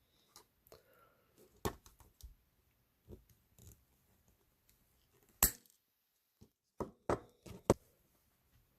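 Scattered small clicks and taps from hand tools and the tiny metal parts of a 1/64-scale diecast truck during a wheel and axle swap. The sharpest click comes about halfway through, and a quick cluster of taps follows near the end.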